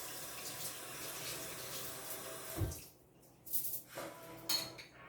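Running water that stops abruptly about three seconds in, with a dull thud just before it stops and a few light knocks afterwards.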